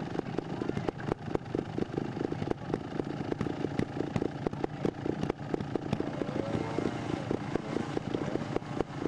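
Trials motorcycle's two-stroke engine running at low revs, with irregular throttle blips and pops.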